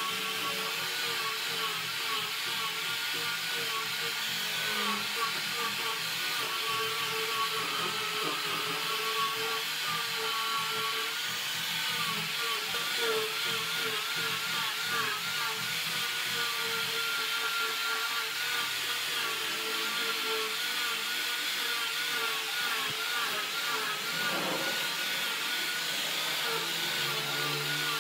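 Small angle grinder fitted with a sanding disc on a backing pad, running steadily as it sands the rounded end of a softwood block. The motor's whine wavers in pitch as the disc is pressed into the wood.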